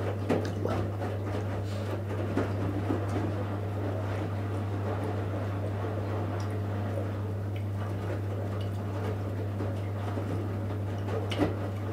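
Electrolux EWF 16589 W front-loading washing machine on a wash, its drum turning the laundry through the water with a churning, sloshing sound over a steady low hum, and a few light knocks. The owner says its drum bearings are worn out.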